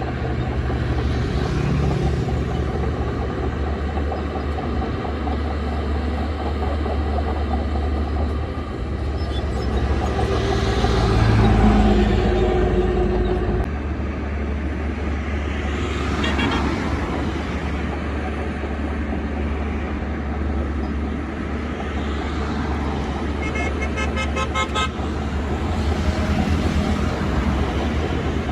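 Shantui DH17 C2 bulldozer's diesel engine running steadily, rising in load for a few seconds partway through. A short pulsed beeping tone sounds briefly near the end.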